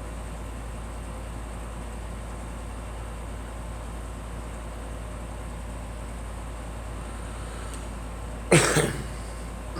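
A girl coughing: one loud cough with a quick smaller second hack near the end, over a steady low background hum.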